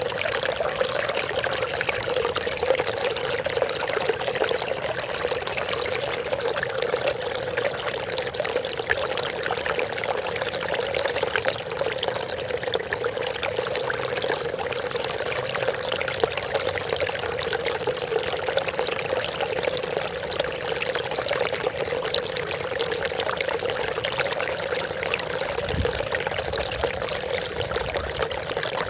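Water trickling and splashing steadily, without pause.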